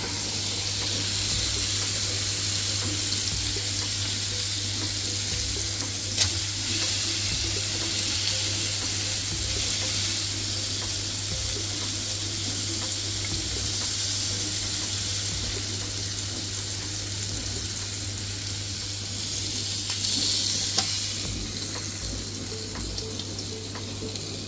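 Pork loin steaks sizzling on the hot plates of an electric contact grill, a steady hiss over a low hum, with a sharp click about six seconds in and again near the end.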